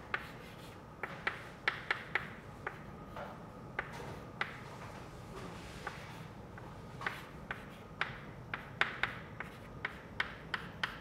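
Chalk on a blackboard while writing: an irregular run of sharp taps and short scratches as each stroke is made.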